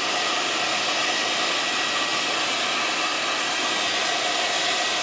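A handheld upholstery-cleaning device running steadily: an even rushing of air with a thin steady high whine over it.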